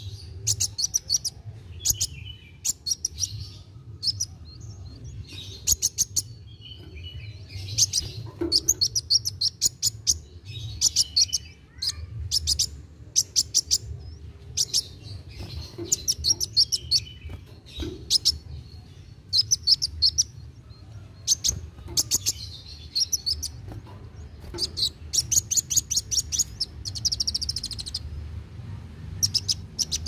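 A caged kolibri wulung sunbird singing in short bursts of rapid, high, sharp notes, one burst every second or two.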